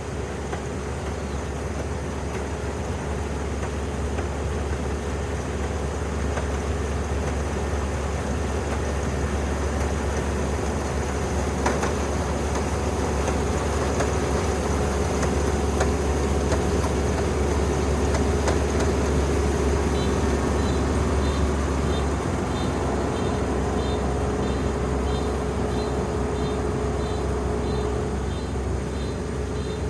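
Dynamax 470 combine harvester running steadily under load while it harvests rice, with a low engine hum and a steady mechanical whine. About two-thirds of the way through, a faint regular high beeping starts, about two beeps a second.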